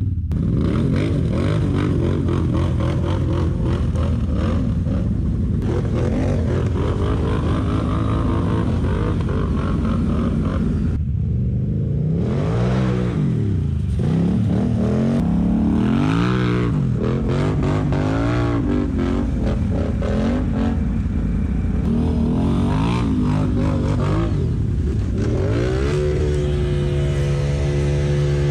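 ATV engines idling and revving up and down over and over as the quads claw through a muddy gully, several engines overlapping. The engine pitch rises and falls every second or two, and near the end settles into a steadier, even note.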